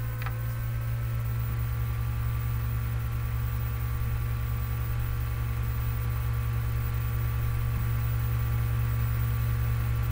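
Steady low electrical hum with a constant background hiss, and one brief click right at the start.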